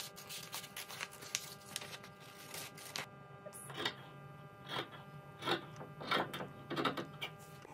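Scissors cutting, a series of sharp snips, quick and close together for the first three seconds, then spaced out to roughly one every two-thirds of a second. A faint steady hum runs underneath.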